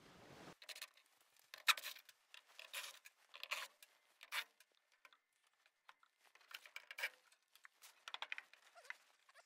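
Hands working on plastic hoses and fittings inside a gas furnace cabinet: faint, irregular scratchy rustles and clicks, a dozen or so short bursts.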